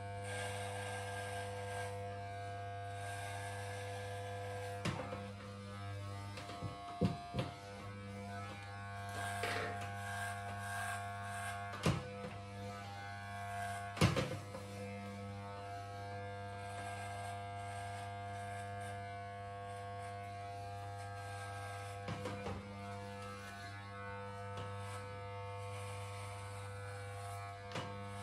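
Corded electric hair clipper running with a steady low buzz as it is passed over head stubble, with a few short knocks and clicks as it is moved against the scalp.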